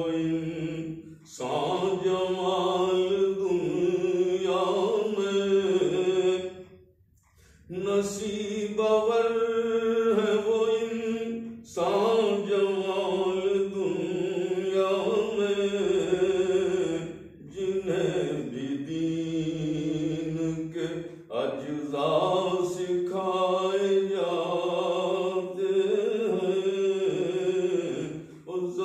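A man's unaccompanied voice chanting a naat, an Urdu devotional poem in praise of the Prophet Muhammad, in long, slowly bending melodic phrases. The phrases are broken by short breath pauses, the longest about seven seconds in.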